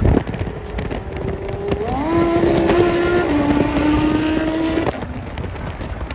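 Car engine at highway speed under steady road and wind noise. Its note glides up about two seconds in, holds steady, drops to a lower pitch a second later and fades near the end.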